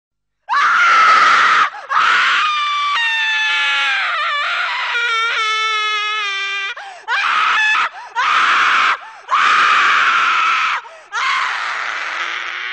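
A person screaming in a series of about six loud, high-pitched cries, with a long wavering, slowly falling wail in the middle.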